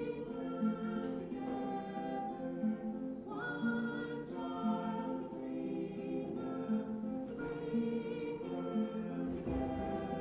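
A group of voices singing a slow song together, over a steady plucked guitar accompaniment.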